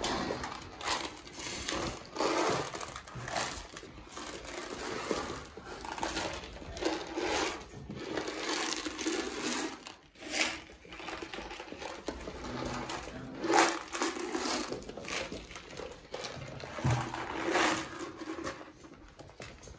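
Month-old Weimaraner puppies scrambling and tussling on blankets: irregular rustling and scuffling of fabric and paws, coming in uneven bursts.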